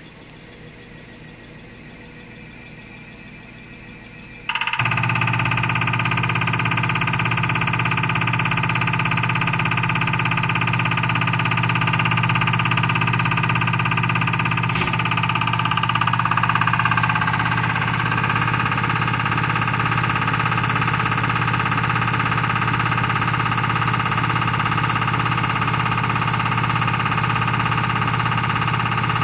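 Common rail injector test bench starting up suddenly about four and a half seconds in, after a low hum: its drive motor and high-pressure pump run loud and steady, holding rail pressure while the test injector fires.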